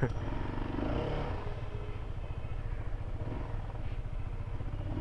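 Honda CBR150R's single-cylinder engine running steadily at low speed as the motorcycle rides.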